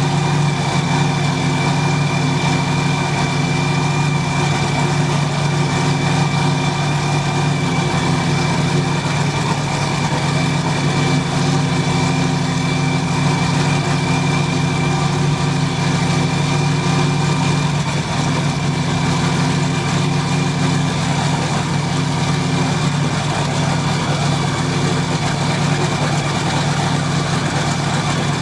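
An engine idling at an even speed: a deep, steady hum with a faint high whine above it that never changes pitch.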